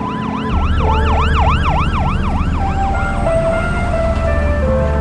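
A siren yelping in fast rising-and-falling sweeps, about three a second, fading out after about three seconds. A deep low drone starts about half a second in, and steady held tones come in as the siren fades.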